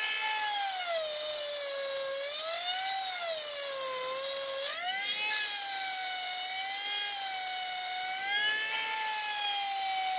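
Flex-shaft rotary tool spinning a rounded-end carbide burr as a lathe tool post grinder, cutting a slot in steel. It makes a steady high whine whose pitch sags as the burr bites into the cut and climbs back as it frees up, with a quick rise about five seconds in.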